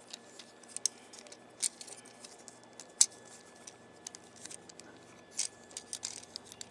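Plastic parts of a Transformers Scout-class Breacher action figure clicking and snapping as its limbs and panels are moved into robot mode: scattered light clicks, the sharpest about three seconds in.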